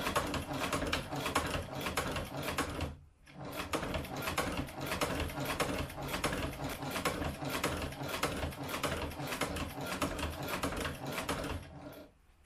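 Sfeomi hand-cranked cobbler's sewing machine stitching leather: a fast run of mechanical clicking as the handwheel is turned, with a brief pause about three seconds in. The clicking stops shortly before the end.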